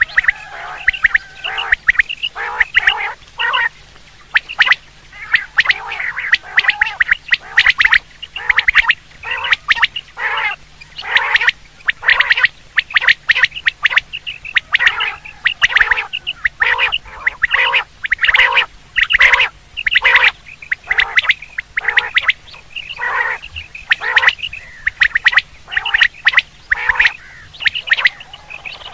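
Quail calls used as a hunting lure, repeated over and over in quick short runs with hardly a pause.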